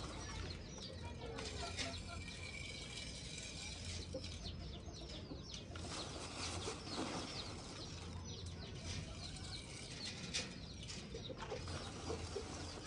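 A hand scooping birdseed out of a plastic bag in a bucket, the bag and grain rustling, while birds give many short, high, falling chirps. A faint steady low hum runs underneath.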